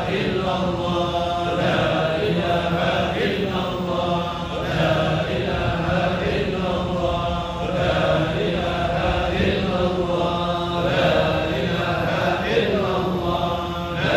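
Congregation chanting Arabic dhikr together in unison, a short phrase repeated in a steady rhythm about every two seconds.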